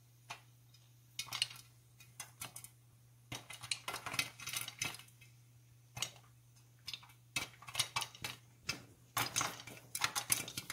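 Popcorn kernels popping in hot oil in a covered pot, sharp irregular pops under a glass lid. They come only now and then at first and crowd together faster near the end, as the batch gets going.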